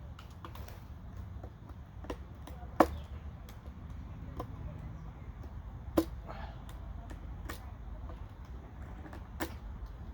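A utility box knife cutting into carved wood: scattered sharp clicks and snaps as the blade bites and chips break off, with three louder cracks about three seconds apart.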